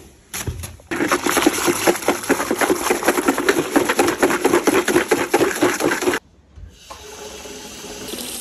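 A dense crackling, rustling noise for about five seconds stops suddenly. Near the end a kitchen tap starts running into a plastic bucket in the sink, getting louder as the flow builds.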